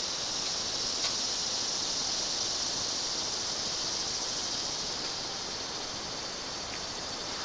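Steady high-pitched drone of summer insects, with one faint tap about a second in.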